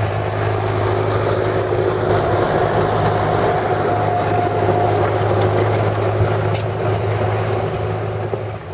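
John Deere tractor engine running steadily, a constant low drone.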